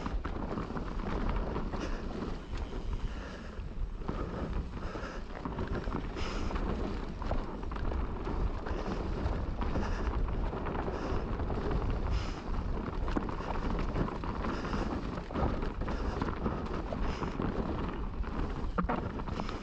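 Mountain bike descending a dirt trail at speed: wind buffeting the microphone and a steady rumble of tyres on the ground, with frequent clicks and knocks as the bike rattles over bumps.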